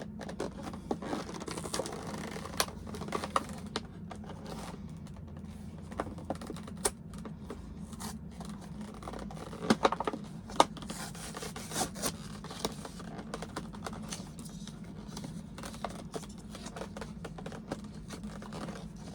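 Hands working an action-figure package open: scattered clicks, scratches and scrapes of the packaging, with a loud cluster of sharp clicks about ten seconds in, over a steady low hum.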